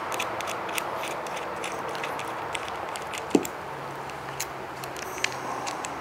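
Small metallic clicks and taps as battery-tender ring terminals are fitted by hand onto a sealed battery's terminal post, with one sharper knock a little past halfway. A steady low hum runs underneath.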